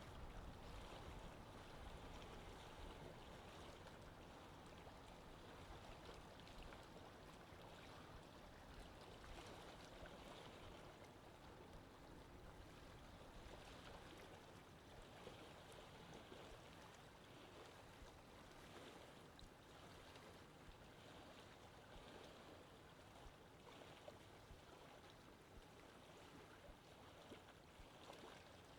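Faint, steady sound of sea water washing and lapping, with a low rumble that fades over the first few seconds.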